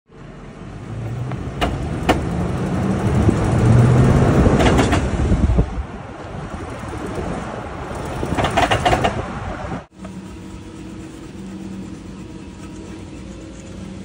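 Toyota Land Cruiser rolling on asphalt with transfer case chain noise, from a worn, very loose transfer case chain: a rumble that builds over the first few seconds, with scattered sharp clicks. After a sudden cut near the end, a quieter steady hum.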